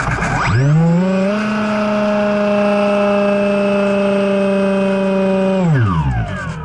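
Multiplex EasyStar II's electric pusher motor and propeller, recorded from the plane's onboard camera: throttled up about half a second in to a steady whine, held for about five seconds, then throttled back, the pitch falling away near the end.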